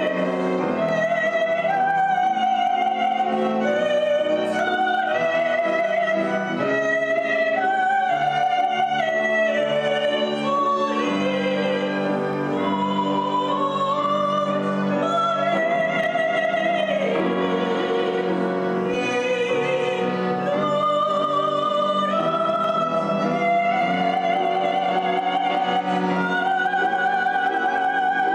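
Persian music: a singer holding long, wavering notes over a steady instrumental accompaniment.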